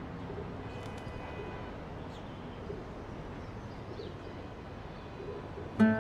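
Steady outdoor background hum with a few faint bird chirps. Near the end, acoustic guitar strumming starts suddenly and is louder than the background.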